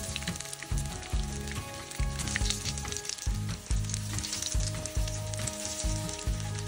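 Vegetable fritters shallow-frying in hot oil, a steady crackling sizzle, with a low regular beat underneath.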